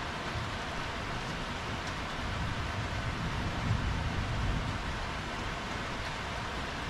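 Heavy rain falling steadily on a wet tiled patio, an even hiss. A low rumble swells in the middle and fades again.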